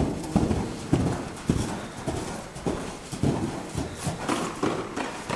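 Hoofbeats of a Thoroughbred gelding moving loose over the soft dirt footing of an indoor arena: a steady run of dull thuds, about two heavy beats a second.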